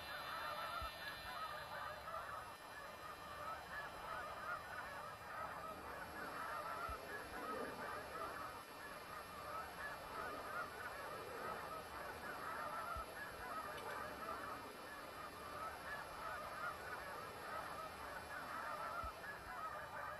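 A flock of honking birds calling over one another in a steady, continuous chorus.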